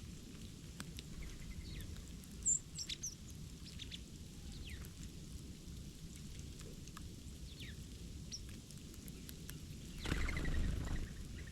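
Small birds calling: a few thin, high chirps and short falling calls scattered over a steady low background rumble, with a louder rustling noise about ten seconds in.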